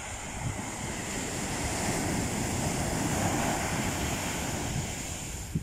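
Ocean surf: a wave breaks on a sandy beach and washes up the shore, the rush swelling about two seconds in and easing off near the end.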